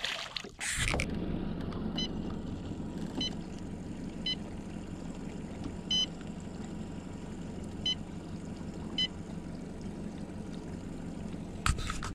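A released bass splashes back into the water, then a steady low hum runs under six short, high electronic beeps spread irregularly over about seven seconds.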